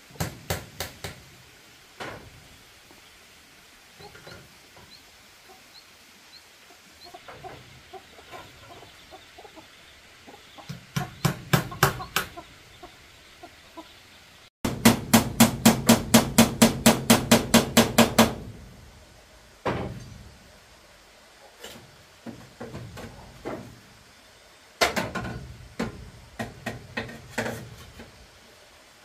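Hammer blows on bamboo in bursts: a few knocks, then a fast, even run of about sixteen strikes about halfway through, then scattered knocks near the end.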